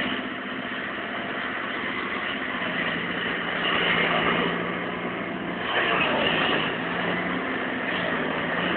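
Liebherr crawler excavator's diesel engine running steadily as it digs snow, swelling louder twice as the machine works under load.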